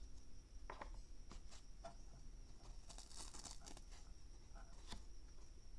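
Faint handling noise from a clear plastic case and its foam insert being taken apart by hand: scattered small clicks and soft rustles, a little busier about three seconds in.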